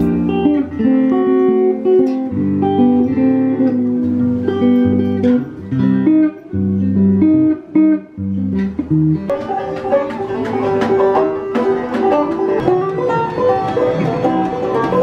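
Guitar music: plucked and strummed guitar notes over low bass notes, changing to a brighter, busier passage about nine seconds in.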